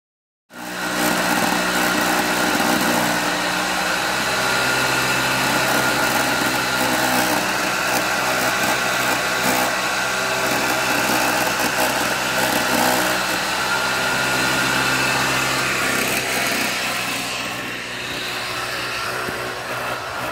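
Motor-driven corn grater running steadily while an ear of green corn is grated on it: a steady motor hum under a dense scraping hiss. It starts suddenly about half a second in and eases a little near the end.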